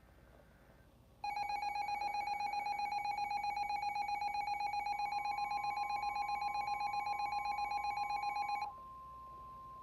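Emergency Alert System two-tone attention signal, a loud, steady, fluttering alarm tone, cut off sharply after about seven seconds. About halfway through, a higher single steady tone, the weather-radio warning alarm tone, joins in and carries on after the two-tone signal stops.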